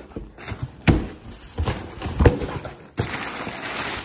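Cardboard shipping box handled by hand: a few knocks and scrapes on the cardboard flaps, then crumpled kraft packing paper rustling steadily as it is pulled about, starting about three seconds in.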